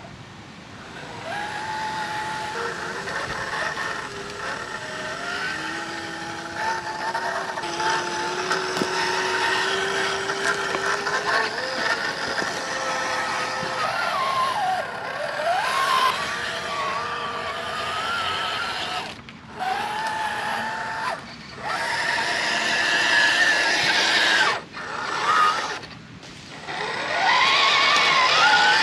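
Radio-controlled ZIL-130 scale truck running on a dirt trail, its motor sound rising and falling in pitch with the throttle. It drops out briefly several times in the second half and is loudest near the end.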